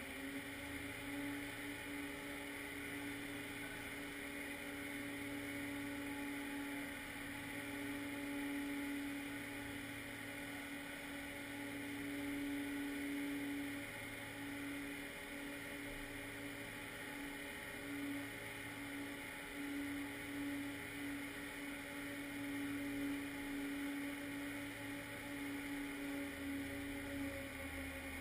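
Ice resurfacer's engine running as the machine drives across the rink, a steady hum with a low throb pulsing about every two seconds.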